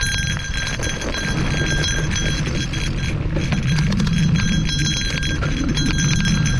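Steady low rumble and rapid rattling clicks of fast travel over a dirt forest trail.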